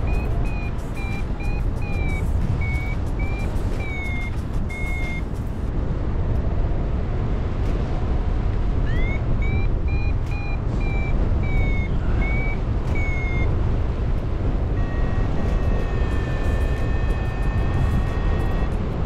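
Wind rushing over the microphone in paraglider flight, with a variometer beeping: two runs of short high beeps that wobble up and down in pitch, signalling climb, then a steady unbroken lower tone near the end, the vario's sink tone.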